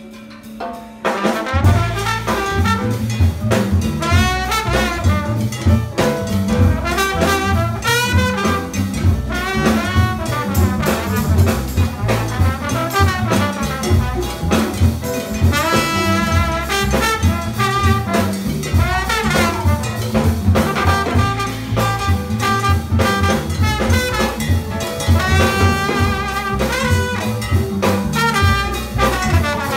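Live jazz band playing: after a quiet first second, the full band comes in, with trombone and tenor saxophone lines over double bass, drums and hand percussion.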